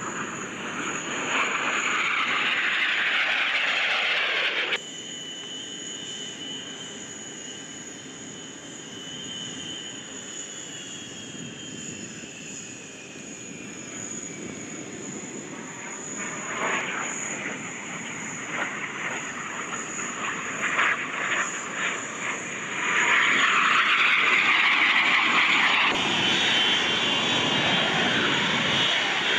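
Jet aircraft of an aerobatic team flying passes, the jet noise swelling and fading, with a falling whine as one jet moves away. The sound changes abruptly several times. Near the end, a steady high jet-engine whine comes from jets on the runway.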